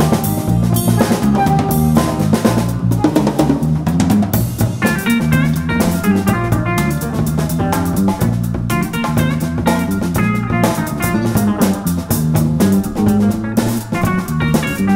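Small band playing live jazz-funk: a busy drum-kit groove with rimshots under an electric bass line and electric guitar.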